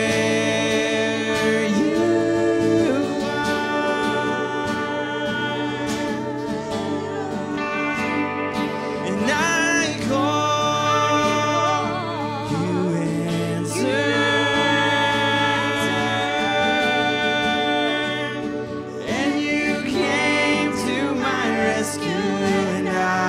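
Worship song performed live: two women singing with vibrato over guitar and a steady, sustained ambient pad from an Aerospace Audio Atmosphere pedal.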